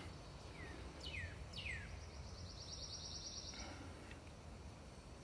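Forest birds calling: three quick down-slurred whistled notes about a second in, then a fast high trill lasting just over a second, over a faint steady hush.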